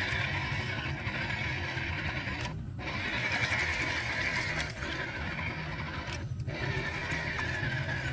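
Scale RC crawler's electric motor and drivetrain running while its spinning tyres churn and splash through muddy water, the truck stuck on its side. The sound drops out briefly twice.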